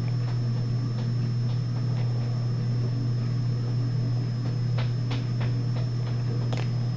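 Steady low hum, with a few faint clicks of trading cards being handled about two-thirds of the way through.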